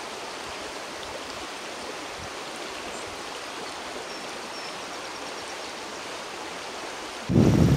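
Shallow stream running over a rocky bed: a steady, even rush of water. Near the end a much louder, rougher low rushing cuts in abruptly.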